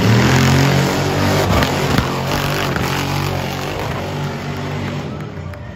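Engine of a stripped-down off-road SUV running at high revs under hard throttle, with a sharp knock about two seconds in, then fading as the truck pulls away.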